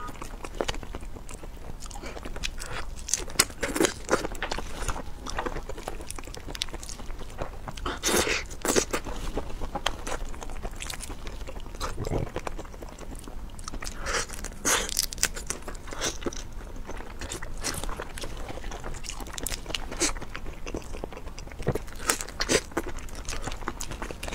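Close-up mouth sounds of a person eating raw marinated whole shrimp: irregular crunches and cracks as the shells are bitten, between stretches of wet chewing.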